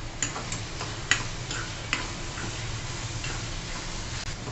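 A spoon stirring onion-tomato masala with ground spices in a pan, sautéing it. It knocks against the pan in a few sharp clicks over the first two seconds, then more faintly, over a steady frying hiss.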